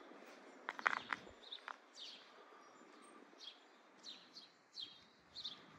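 Small songbirds chirping: a scattering of short, high calls, each sliding down in pitch, over a faint steady outdoor hiss.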